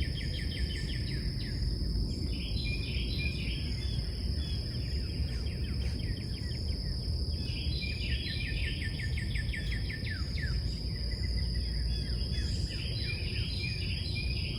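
Small birds chirping in the trees in repeated quick trills and short falling notes, over a steady low outdoor rumble and a constant high-pitched whine.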